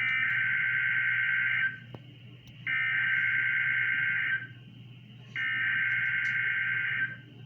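Emergency Alert System SAME header: three bursts of digital data tones, each nearly two seconds long, about a second apart, over a steady low hum. The three bursts are the coded header that opens an alert, sent three times and carrying the event type, area and timing.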